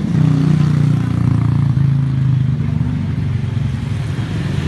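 An engine running steadily at a low, even pitch, with a fast regular pulse.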